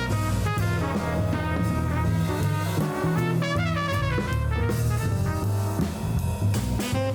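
Background jazz music with brass, a drum kit and a walking bass line.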